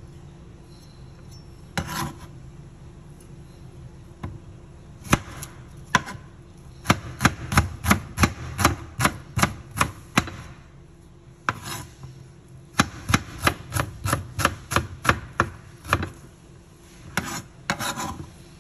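A run of sharp knocks or taps, about three a second, in two bursts through the middle, with a few single knocks before and after.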